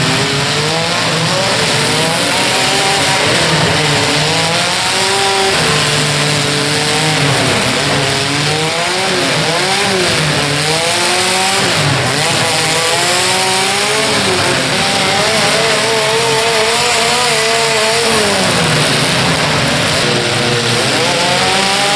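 Several demolition-derby car engines revving up and down at once, their pitches overlapping and constantly rising and falling over a loud, rough din.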